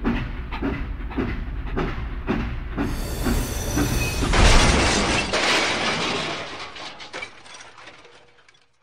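Train running along its track with a regular clack about three times a second. About three seconds in a hiss comes up, and a little after four seconds a loud crash sets in as the train runs into toy bricks on the track. The crash fades away over the next few seconds.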